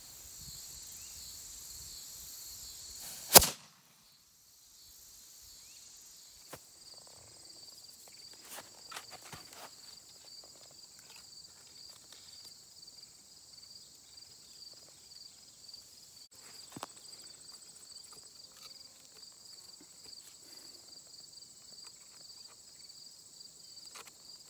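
A single sharp bang about three seconds in from a small forged black powder cannon firing. Then a steady high chirring of insects, with small clicks and taps as the little cannon is handled on a wooden stump.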